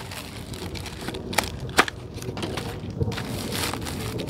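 Clear plastic bag crinkling and rustling as it is handled with a packaged helmet face shield inside, with a couple of sharp crackles about halfway through.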